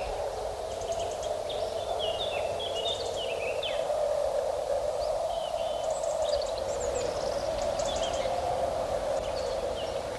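Small birds chirping and twittering, with short calls and quick rattling trills scattered through, over a steady background hum.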